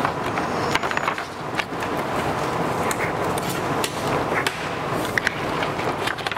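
Steady background hiss with scattered light clicks and taps from paper being handled and a pen writing on a form.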